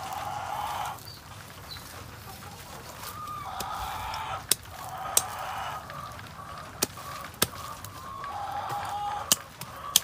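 Chickens calling in drawn-out calls: one at the start, another about three seconds in and another near the end. Several sharp knocks come between them.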